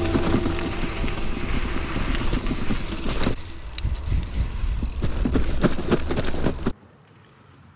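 A bicycle ridden over gravel and then cracked concrete slabs, heard from a rider-worn action camera: wind noise and tyre rumble with many sharp knocks and rattles over the bumps. It cuts off suddenly near the end, leaving only faint quiet outdoor air.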